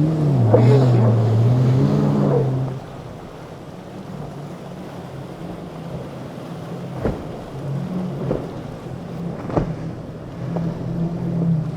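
Motorboat engines running, their pitch swinging up and down as the boat rides over the waves; loud for the first few seconds, then falling back to a quieter steady drone with wind and water noise and a few sharp knocks.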